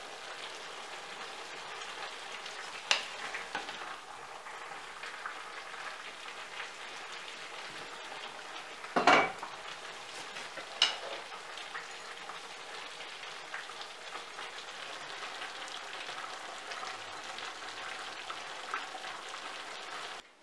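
Potato and vegetable stew simmering in an enamelled cast-iron pot with a steady bubbling hiss. A wooden spoon stirs it and knocks against the pot a few times, loudest about nine seconds in.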